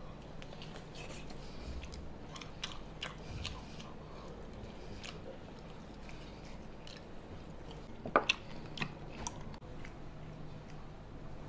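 Biting and chewing of a charcoal-grilled pig's trotter: scattered small wet clicks and snaps of eating, with a louder cluster of them about eight seconds in.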